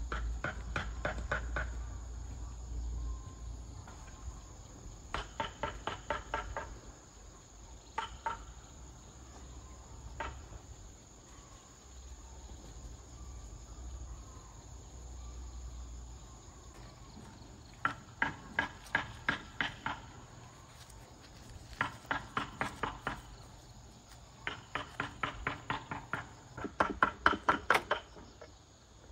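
Runs of quick, sharp knocks, about seven a second, each run lasting one to two seconds with pauses between, most of them in the second half. A steady high-pitched hum runs underneath.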